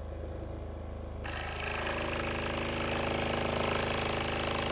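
Hawk G4 scroll saw running with a steady hum. About a second in it grows louder and takes on a hiss as the blade starts cutting into a stack of four taped 1/8-inch Baltic birch plywood sheets.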